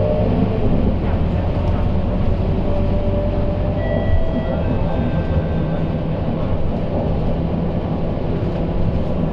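Scania K230UB city bus with its five-cylinder diesel engine running while under way, heard from inside the passenger cabin as a steady engine rumble mixed with road noise, with a faint shifting whine.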